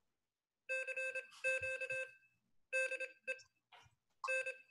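Morserino Morse code trainer's sidetone as Morse is keyed on its paddles at about 25 words per minute in CW keyer mode: rapid dits and dahs in one steady beep pitch, sent in several short groups with brief gaps between.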